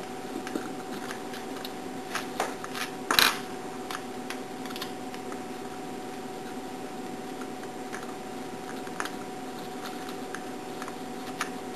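Scattered small clicks and taps of hand-tool work as the Allen head screws holding the foam generator to the shampoo brush are undone, with one louder knock about three seconds in. A steady hum runs underneath.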